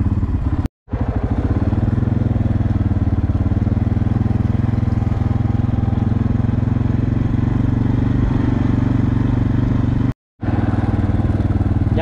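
An engine runs steadily with a fine, even pulse. The sound cuts out completely for a moment twice, about a second in and near the end.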